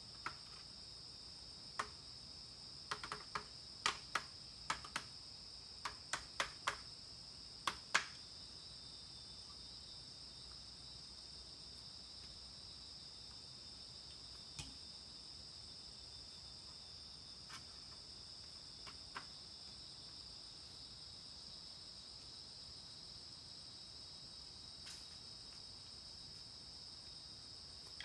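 Steady high-pitched insect chorus, like crickets or cicadas, with a run of sharp clicks and knocks in the first eight seconds and a few fainter ones later.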